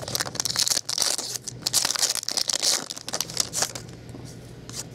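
Trading-card pack wrapper crinkling and tearing as it is opened and the cards handled, a dense crackle that eases off about three and a half seconds in.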